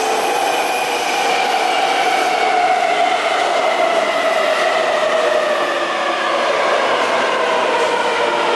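Taipei Metro C321 electric multiple unit pulling into an underground station. Its motor whine slides steadily down in pitch as it brakes, over the rumble of the train.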